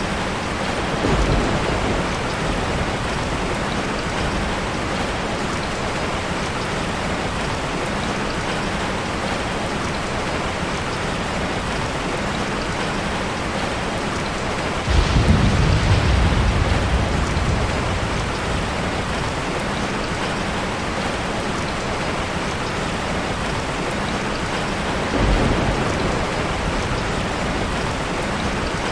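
Steady heavy rain falling, with rolls of thunder: a brief one about a second in, a louder, longer rumble about halfway through, and a shorter one near the end.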